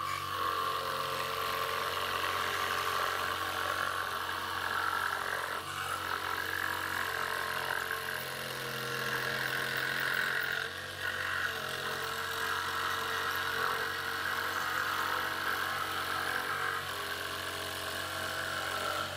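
Proxxon SS 230/E mini jig saw running steadily with its reciprocating blade sawing through a thin sheet, cutting out an internal opening begun from a drilled hole. The saw's level dips briefly a little past halfway.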